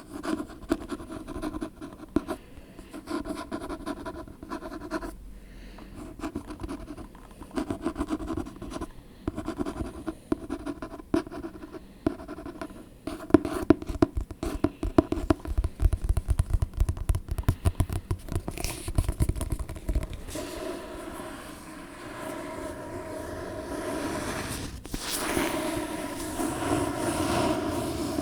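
Close-miked ASMR tapping and scratching on an object: rapid, irregular taps for most of the stretch, giving way about two-thirds through to steadier, continuous scratching.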